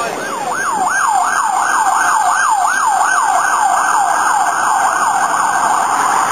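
Siren yelping: a fast wail sweeping up and down about three times a second, cutting off abruptly at the end.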